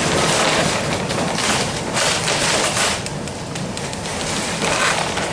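A 1906 wooden streetcar under way, heard from inside the car: its steel wheels run on the rails in a steady rushing rumble, with rattles from the car body.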